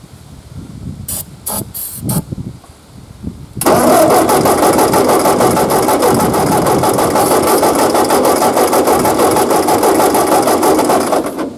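A few short hisses of starting-fluid spray, then the Ford 8N's four-cylinder engine cranking on the starter for about eight seconds without catching: no spark getting through yet, so it won't fire.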